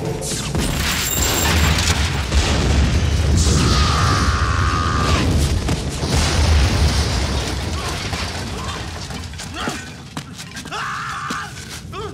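Gasoline explosion and fire: a deep boom just after the start, rolling on as a heavy low rumble for about seven seconds before dying down. Music plays underneath.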